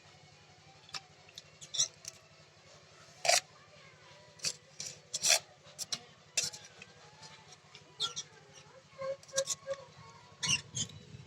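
Utensils clinking and scraping against pots or dishes while noodles are cooked or served: a dozen or so irregular short knocks and clicks, the loudest about three and five seconds in.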